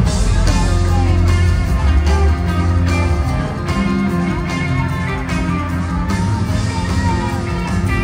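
A rock band playing live with no singing: electric guitars, bass, keyboards and drums, with sliding, bending lead notes in the second half. Heard from within the audience of a large hall.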